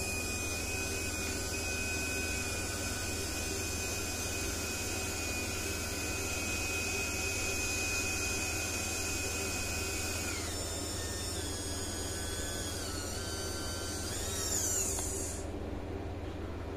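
Small geared servo motor of an RC model forklift whining as its lift mast lowers a loaded pallet. The whine holds one steady pitch for about ten seconds, then drops and shifts in several steps, with a short warbling rise and fall near the end.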